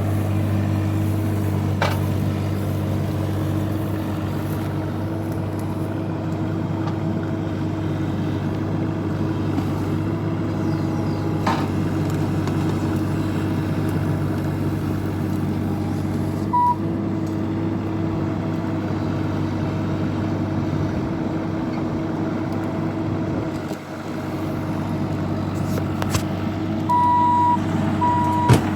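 Diesel engine of a Bobcat E26 mini excavator running steadily under work, with a few sharp knocks of debris or the bucket. Near the end its travel alarm starts beeping at an even pace.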